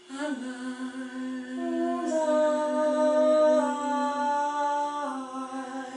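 A woman singing unaccompanied, holding one long note for several seconds, then moving to a new note about five seconds in.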